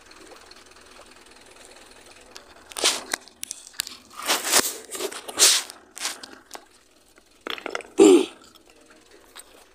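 A run of short scraping, rustling noises, several within a few seconds, with the loudest one near the end.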